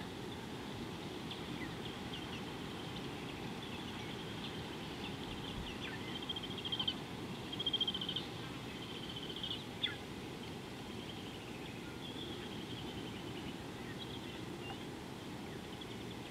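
Small birds chirping and giving short, rapid high trills, loudest about six to ten seconds in, over a steady low background rush.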